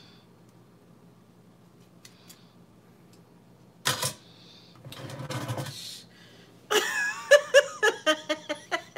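A sharp clatter about four seconds in and a second or so of scraping, then a woman laughing in a quick run of short bursts near the end.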